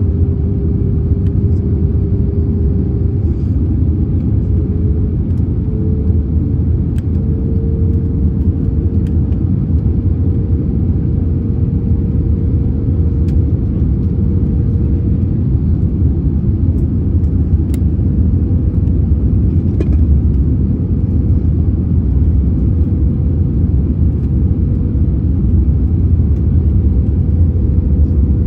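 Cabin noise of an Airbus A320-family jet airliner flying with flaps extended: a steady low rumble of the engines and airflow over the airframe. Through it runs one engine tone that rises a little in pitch over the first several seconds, then holds.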